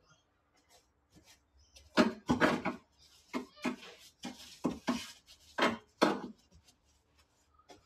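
Paintbrush scrubbing paint onto the bare metal floor pan of a Hilux cab, a run of short scraping strokes about two a second that starts a couple of seconds in and stops near the end.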